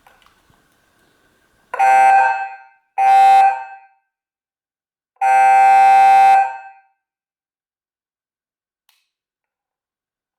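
40-watt motorcycle police siren speaker sounding a steady, unwavering horn tone: two short blasts, then a longer blast of about a second and a half.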